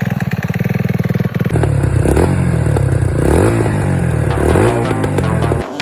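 Quad (ATV) engine idling with an even, fast pulse, then revved up and down several times from about a second and a half in, the pitch rising and falling with each blip of the throttle; the sound cuts off abruptly near the end.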